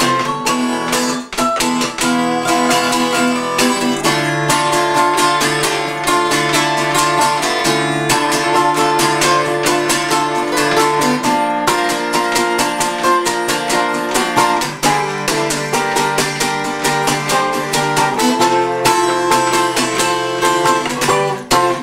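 Acoustic guitar strumming together with a resonator guitar picking notes, an instrumental guitar passage with a steady rhythm.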